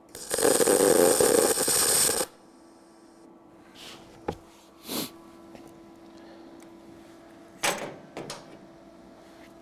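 Eastwood MP200i MIG welder firing a timed spot weld through a spot-weld nozzle: about two seconds of loud, steady arc crackle that cuts off sharply when the spot timer runs out, followed by a faint hiss. The timer is set long, which gives a much larger weld. A few light metal knocks and clicks follow.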